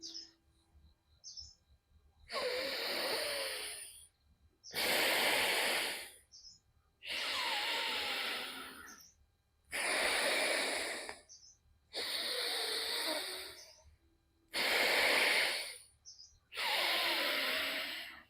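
Alternate-nostril breathing (anulom vilom pranayama): seven long, hissing breaths drawn in and let out through the nose, each lasting about two seconds, with short pauses between them.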